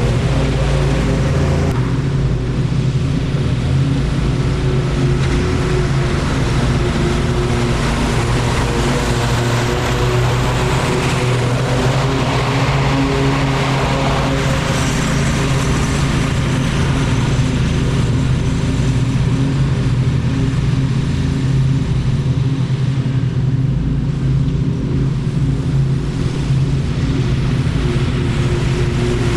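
Petrol lawn mower engine running steadily under load while cutting thick grass.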